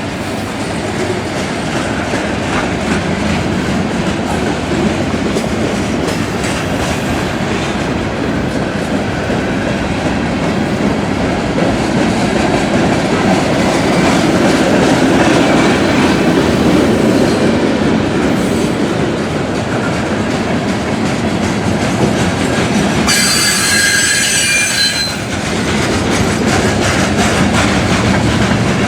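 Freight train cars rolling past, with a steady loud rumble of wheels on rail. A high-pitched wheel squeal rings out for about two seconds, a little over twenty seconds in.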